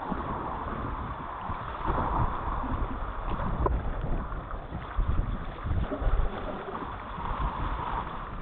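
Water rushing and gurgling around a canoe running a river swift, with low rumbling wind buffeting on the microphone and a few faint knocks.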